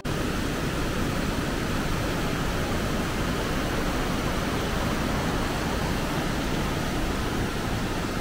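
Mountain stream rushing over rocks in a small cascade: a steady, even rush of water.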